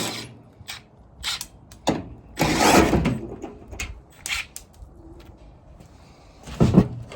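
Metal clicks and knocks from a Toyota pickup's door and hinge being worked loose. About two and a half seconds in there is a louder rattling scrape lasting about a second, and another clunk near the end.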